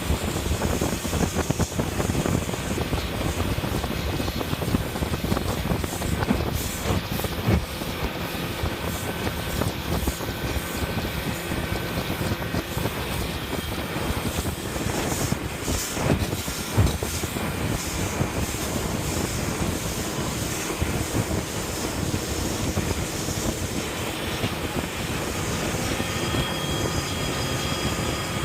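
Speedboat running at speed: a steady engine drone under a constant rushing noise of wind and water.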